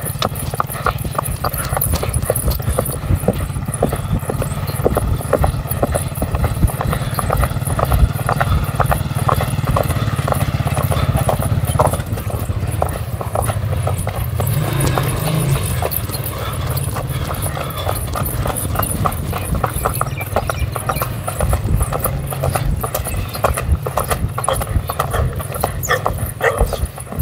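A ridden horse's hooves striking dry dirt in a quick, continuous run of hoofbeats, over a steady low rumble.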